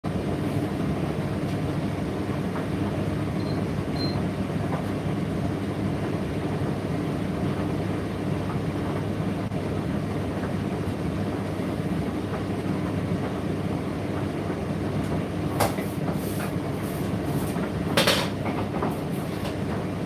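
Indesit IDC8T3 condenser tumble dryer running: a steady rumble and hum of the motor and turning drum. A few knocks and clacks come in the last few seconds, the loudest about 18 seconds in.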